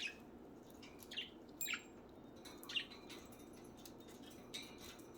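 Pet budgerigars giving a handful of short, faint chirps, spaced out over a few seconds.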